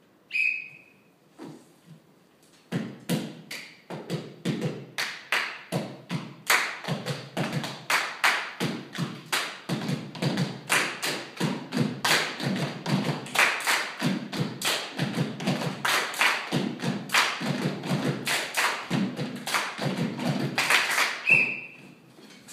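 Junk-yard percussion: sticks and hands striking buckets, boxes and other found objects in a steady rhythm of a couple of hits a second, starting about three seconds in after a few single hits and stopping shortly before the end. A short high tone sounds about half a second in and again near the end.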